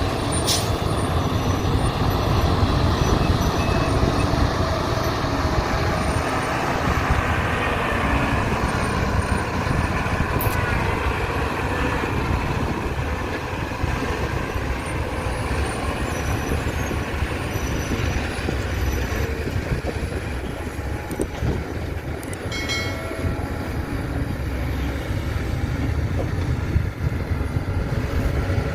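Heavy diesel engines of an excavator and dump trucks running steadily under load, a continuous low rumble. A short higher-pitched tone sounds about three quarters of the way through.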